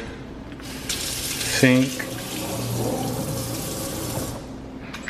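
Water from a single-lever kitchen faucet running into a stainless steel sink after the lever is lifted, a steady splashing hiss that starts about half a second in and stops abruptly after about three and a half seconds as the tap is shut off.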